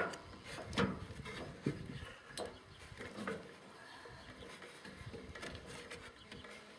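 About five light knocks and scrapes over the first three and a half seconds, then faint rustling.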